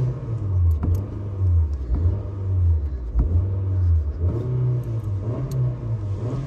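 Car engine being revved, its engine speed rising and falling several times.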